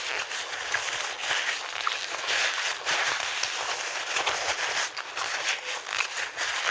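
Close-miked eating sounds: continuous chewing with many small crackly, wet clicks, with no pause.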